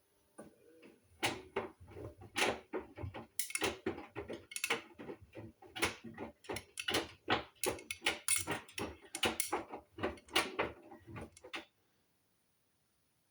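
Hoover washing machine drum turning the wash: a run of irregular knocks and clunks over a low rumble, a few per second, that stops near the end as the drum pauses.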